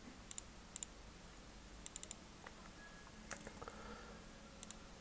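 Faint, scattered clicks of a computer keyboard and mouse, a few single presses and quick pairs, as code is selected and copied in an editor.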